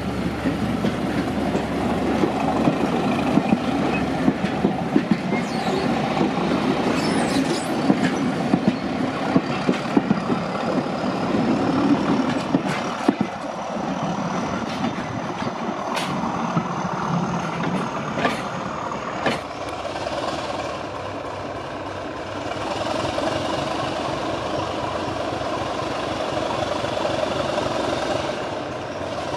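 Heritage diesel-hauled train running on the line, with sharp clicks from the wheels over the rail joints through the first two-thirds, then a steadier running sound.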